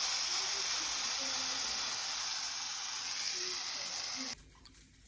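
Pancake batter frying in a hot pan, a steady sizzle that cuts off suddenly about four seconds in.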